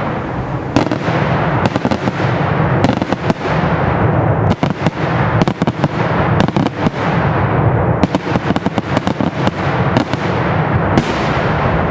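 Daytime fireworks display: a dense, unbroken barrage of aerial bursts, rapid bangs and crackle running together over a steady rumble.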